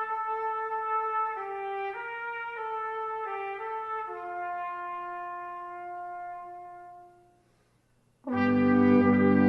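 Brass music: a slow melody of held notes on a single brass line, the last note dying away. After a brief pause a louder, fuller brass ensemble comes in near the end.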